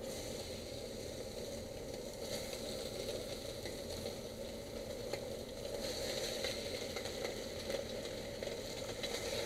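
Blackening-seasoned redfish fillets sizzling in shallow hot olive oil in a skillet. The sizzle starts as the fish goes in and grows louder about halfway through.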